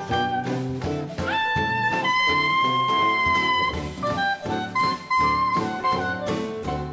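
Jazz background music with a horn melody over a steady beat. About a second in, the horn holds one long note for two or three seconds.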